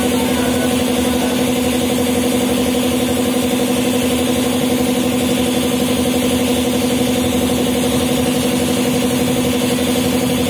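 Motor-driven car-wash machine (pump or compressor feeding the wash and foam lances) running with a steady hum and a fast, even pulse.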